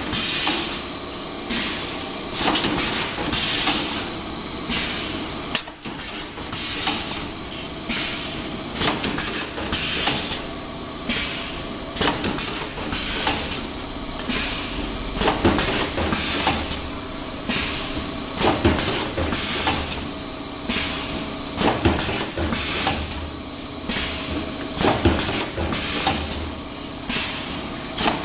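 Wire ring forming and welding machine running through its cycle: a steady mechanical hum with short hisses and clanks about once a second.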